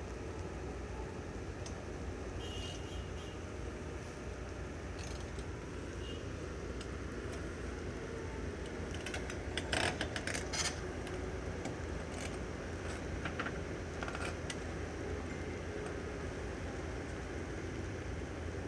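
Construction-site noise: a steady low rumble with scattered metallic clinks and clanks, a cluster of louder ones about ten seconds in.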